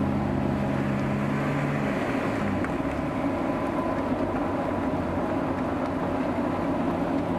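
Engine of a six-wheel-drive off-road truck working through deep mud: a steady low hum for about the first two seconds, then a rougher, uneven engine sound.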